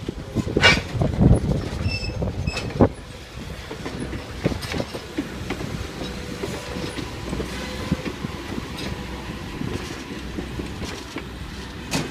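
Railroad passenger cars rolling along the track, the wheels clicking and knocking over rail joints above a steady rumble. The clicks are loudest and thickest in the first three seconds, then the rumble goes on quieter with scattered clicks.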